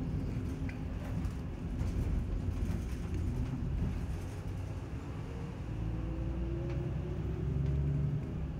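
City bus running, heard from inside the passenger cabin: a steady low engine and road rumble, with a rising whine in the second half as the bus speeds up.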